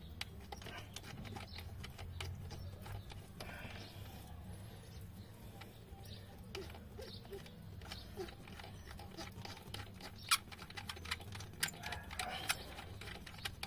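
Hand tools and small metal parts clicking and tapping at irregular intervals while throttle-body screws are undone, with sharper clicks in the last few seconds, over a steady low hum.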